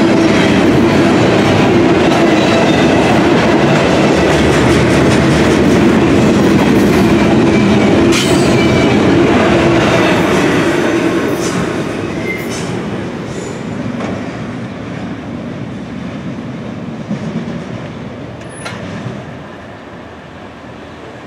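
Double-stack intermodal container well cars rolling past on steel rails, wheels clattering over the track with some steady squealing. The noise holds steady for about ten seconds, then fades as the last cars pass and the train draws away.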